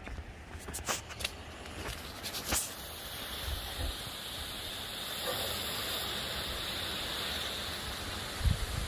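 A few knocks in the first three seconds, then the steady rush of floodwater pouring through an overflowing storm drain, growing a little louder about five seconds in.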